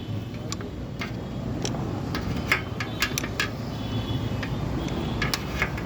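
Scattered light clicks and clinks of parts and tools being handled while fitting a panel on a motorcycle, several in quick succession near the middle and a couple more near the end, over a steady background noise.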